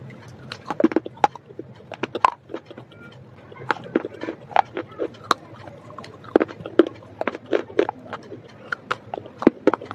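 Close-miked crunching and chewing of dry baked clay: sharp, irregular crunches a few times a second as pieces are bitten and ground between the teeth.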